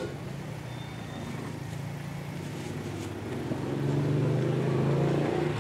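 Small motor scooter engine running with a steady low hum, growing louder a little past halfway.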